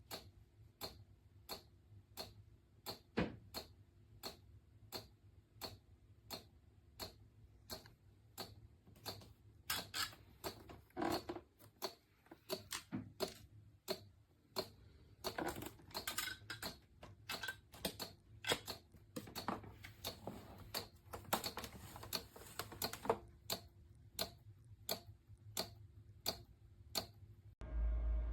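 Steady ticking, a little over two ticks a second, with stretches of rustling noise between the ticks.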